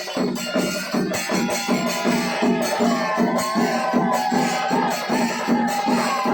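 Music: a steady drum beat of about three to four strokes a second, with a wavering melody line coming in about a second in.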